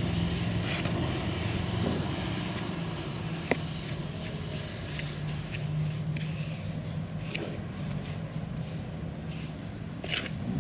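Steady hum of an engine running, with a single sharp click about three and a half seconds in.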